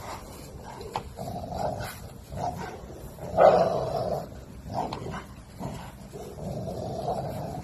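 American Bully growling in three drawn-out bursts, the loudest about halfway through, as it hangs from and tugs at a rope toy in play.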